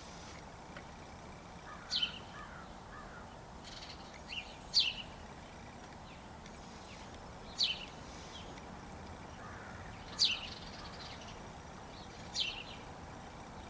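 Birds calling: a short, high call sweeping downward repeats about every two to three seconds, and faint crow cawing is heard twice.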